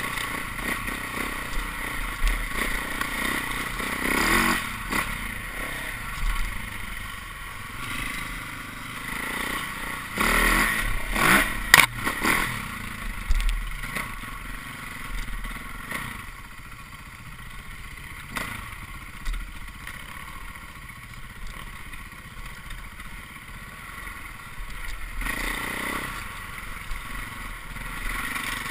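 Dirt bike engine running while riding over rough trail, with the bike clattering and knocking over bumps. The loudest jolts come about ten to twelve seconds in.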